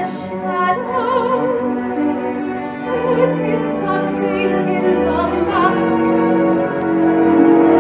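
Operatic-style musical-theatre singing with strong vibrato over an orchestra, swelling into a long held note near the end.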